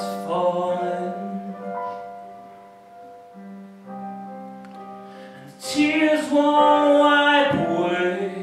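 A man singing a bluesy song to his own piano-sound digital keyboard. Held chords fade over the first few seconds, new chords come in about three and a half seconds in, and he sings a loud, long phrase through the second half.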